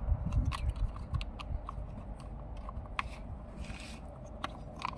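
Scattered light clicks and taps of a screwdriver and loosened screws being worked by hand on a camera mount, over a low handling rumble near the start.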